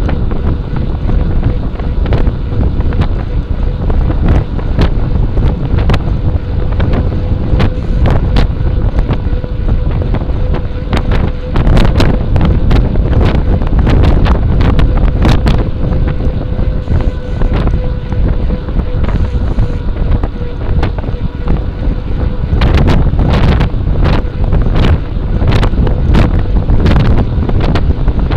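Heavy wind buffeting the microphone of a rear-facing Cycliq camera on a moving bicycle, a constant low rumble. Frequent sharp clicks and knocks come at irregular intervals, thickest around the middle and again near the end, over a faint steady hum.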